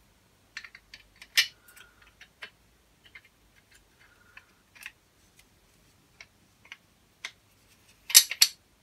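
Irregular light clicks and clinks of an Andre Hartford friction damper's painted steel arms, blades and washers being handled and fitted together by hand, with a louder quick clatter near the end.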